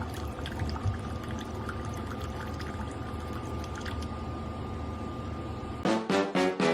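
A steady rushing sound like running or pouring water, with a faint steady whine in it. Near the end it gives way to lively music with a strong beat.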